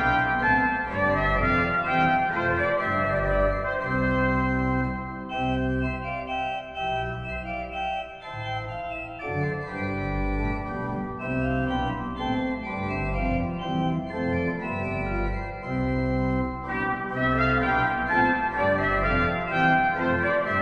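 Organ music playing slow, sustained chords, thinning out for a few seconds in the middle.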